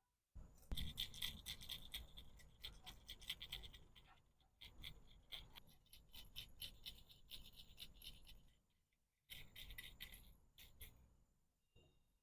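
Small items and packaging being handled at close range: bursts of scratchy rustling and light clicks and taps, separated by brief pauses.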